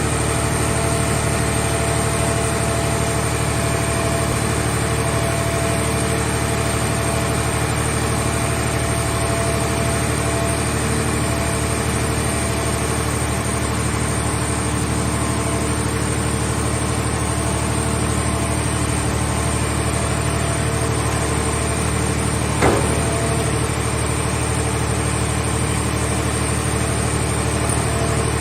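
Car shell baler's power unit running with a steady, even drone and a constant hum. One sharp click near the end.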